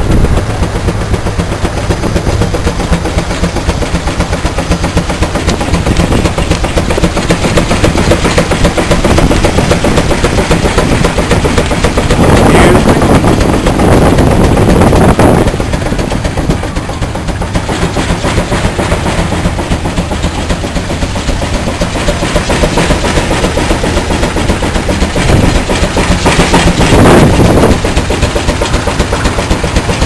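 Steam traction engine running under belt load, driving a threshing machine, with a fast, even beat of exhaust chuffs. Two louder rushes of noise come about midway and near the end.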